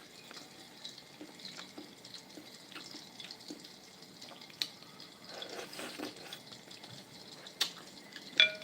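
Faint eating sounds: scattered small clicks and smacks of chewing and handling food, with a couple of sharper clicks and a brief ringing clink near the end.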